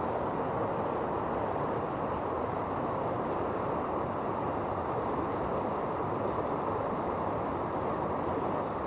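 Steady rushing of a fast-flowing river over shallow rapids.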